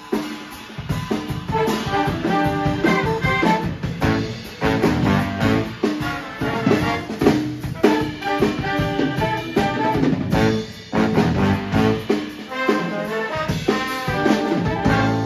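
Live big band playing swing jazz, with saxophone, trombone and trumpet sections.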